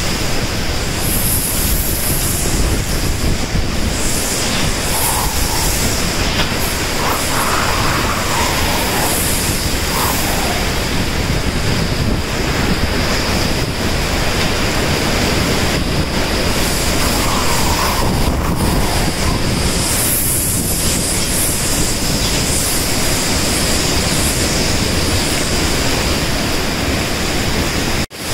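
Hurricane wind and driving rain: a loud, steady rushing with gusts buffeting the microphone.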